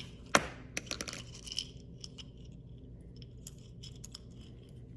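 Handling noise on a plastic bag: one sharp click about a third of a second in, then a quick scatter of light clicks and crinkles, thinning to a few faint ticks.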